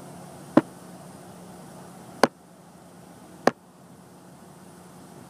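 Three sharp clicks, the gaps between them about a second and a half, over a faint low steady hum.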